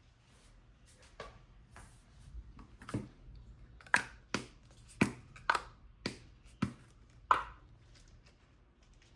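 Sharp clicks and taps from handling the cleanser bottle and its packaging. A few light ones come first, then a run of about seven louder ones at roughly two a second in the second half.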